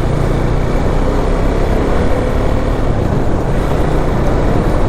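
Steady wind rush and engine noise of a motorcycle under way, heard from the rider's own microphone, with a faint low engine hum underneath.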